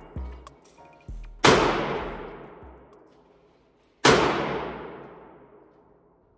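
Two gunshots from a compensated 9mm Staccato XC pistol, about two and a half seconds apart, each followed by a long echo off the walls of the indoor range. Fainter, shorter bangs come in the first second or so.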